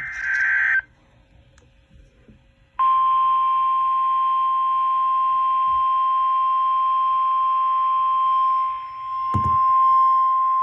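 End of an EAS/SAME digital header burst, a short warbling data screech, then a steady single-pitch weather-radio warning alarm tone starting about three seconds in and holding over a radio hiss. A brief low thump sounds near the end.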